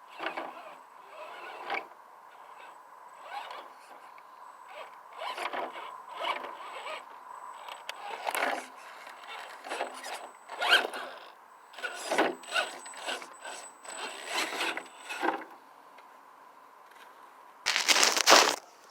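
Radio-controlled rock crawler's motor and drivetrain whining in short, irregular throttle bursts over a faint steady tone. A louder harsh burst lasting about a second comes near the end.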